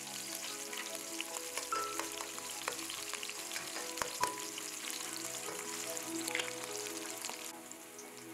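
Sliced onion, hot pepper and cumin seeds sizzling as they fry in hot oil in a stainless steel pot, stirred with a metal spoon that gives a couple of light clicks about four seconds in. The sizzle turns fainter near the end.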